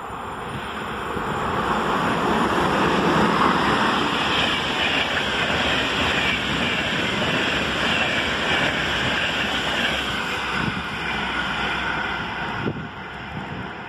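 A passenger train hauled by a Siemens Vectron electric locomotive passes through the station at speed. There is a loud rushing of wheels on rails and coaches going by, which builds over the first couple of seconds, holds, and then fades as the last coaches draw away.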